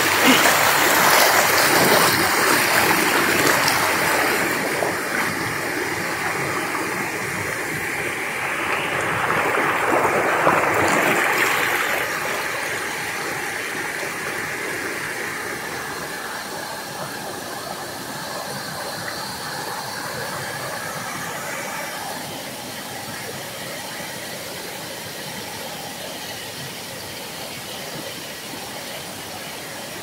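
Creek water rushing and splashing over rocks at a small waterfall: a steady rush, loudest in the first twelve seconds or so, then growing gradually fainter.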